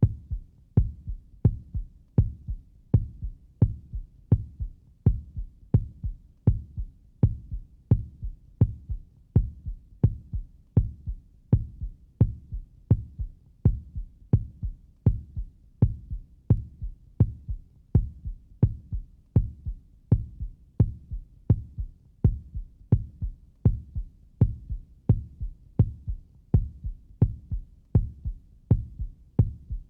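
Normal, healthy human heartbeat: a steady, even rhythm of low, dull lub-dub double thumps.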